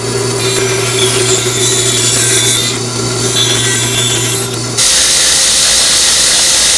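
A band saw runs with a steady motor hum while cutting wood. About five seconds in, the sound switches abruptly to a belt grinder sanding a wooden block, an even, loud rushing noise with no hum.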